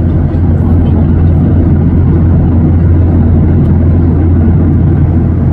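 Steady cabin noise of a Boeing 737-800 airliner in cruise: an even, deep rumble of its CFM56 engines and the airflow over the fuselage.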